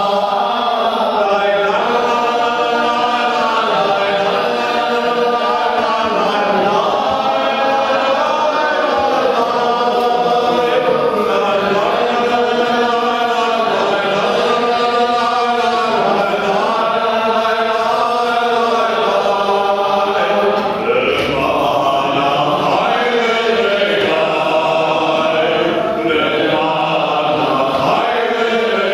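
A man chanting a Jewish prayer solo in cantorial style, in long held notes that waver and glide in pitch.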